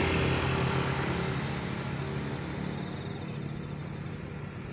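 Small motorcycle engine running as it passes and rides off down the road, fading steadily away.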